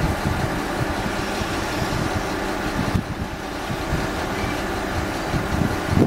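Small industrial tank steam locomotive running slowly, heard as a steady rushing hiss with irregular low thumps, mixed with wind buffeting the microphone.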